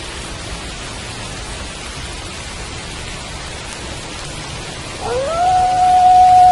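Steady rain falling, and about five seconds in a wolf's howl begins: it rises quickly in pitch, then holds one long, level note.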